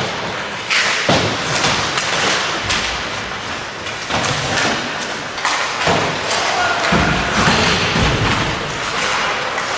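Ice hockey play in a rink: a run of irregular thuds and knocks from sticks, puck and players hitting the boards and ice, over a steady hiss of skates on the ice.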